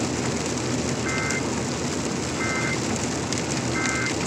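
Steady rain and wet-road tyre noise heard from inside a truck cab driving on a highway in the rain. Three short electronic beeps sound, evenly spaced a little over a second apart.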